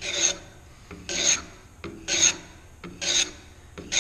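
Block plane taking short shaving strokes along the corner of a wooden board, five strokes about a second apart, each a brief hiss. These are the first 45-degree cuts that start a rounded edge.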